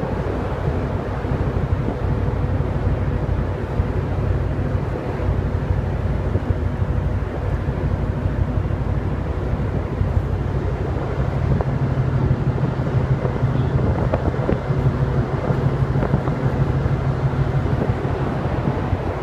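Wind buffeting the phone's microphone on the open deck of a ferry under way, over the steady low hum of the ship's engines and machinery.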